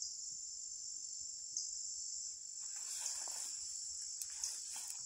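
Steady high-pitched insect trilling, typical of crickets, with a faint rustle about three seconds in.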